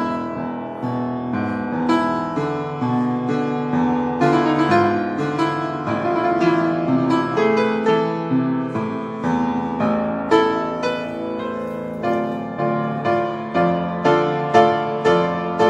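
Solo upright piano played, a flowing passage of many notes and held chords; near the end, stronger accented chords come about twice a second.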